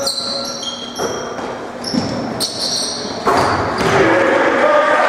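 Basketball shoes squeaking on a hardwood gym floor in a run of short high chirps, with the odd thud of the ball. About three seconds in, a louder wash of voices and gym noise rises.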